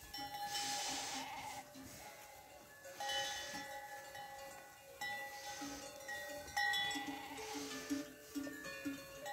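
A large grazing flock of sheep with many bells jangling together, a shifting chorus of ringing notes at different pitches, and sheep bleating now and then.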